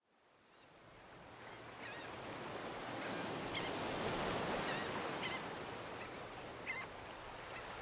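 Surf washing steadily, fading in from silence over the first couple of seconds, with several short bird calls above it.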